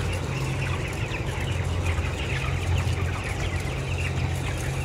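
A flock of broiler chickens clucking and cheeping, many short calls overlapping, over a steady low hum.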